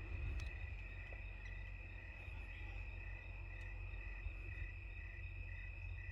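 Crickets chirping in the night: a steady high trill with pulsed chirps repeating about two to three times a second, over a low rumble of wind or handling on the microphone.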